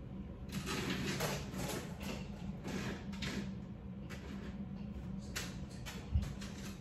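Vertical window blinds being drawn shut: the slats clatter and slide along the head rail in a long spell starting about half a second in and a shorter one near the end, followed by a low thump.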